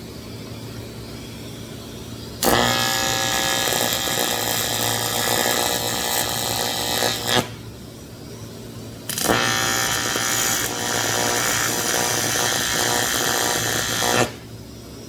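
TIG welding arc on thin aluminum, buzzing and crackling in two runs of about five seconds each that start and stop abruptly. A low steady hum carries on between the runs.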